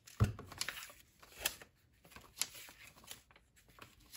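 Pages of a paper instruction booklet being flipped by hand: a run of short papery flicks and rustles, with a soft bump about a quarter second in.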